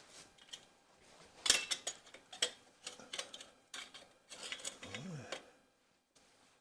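Metal hand tools clinking and clattering against each other and against metal in a string of sharp clicks, the loudest about a second and a half in.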